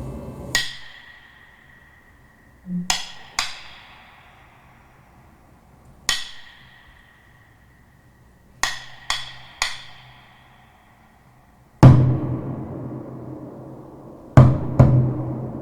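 Sparse percussion music played back through Klipsch R-51M bookshelf speakers. Sharp, wood-block-like strikes ring briefly, some singly and some in quick pairs and threes, and deeper, heavier drum hits come near the end.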